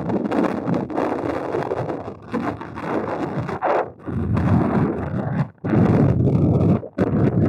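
Wind buffeting the microphone in uneven gusts, a loud low rumble that drops out abruptly a couple of times near the end.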